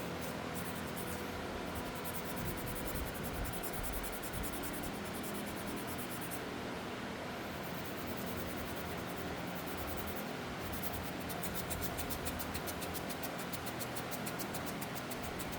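A rusty steel hand tool being scrubbed by hand after a Rexco 50 rust remover is applied: a steady, fast, scratchy rubbing made of quick even strokes.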